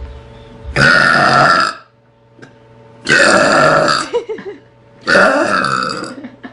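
A teenage girl burping loudly three times, each burp about a second long, roughly two seconds apart.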